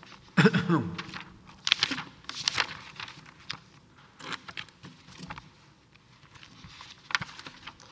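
Rustling and soft knocks close to a microphone, with a short murmured vocal sound about half a second in.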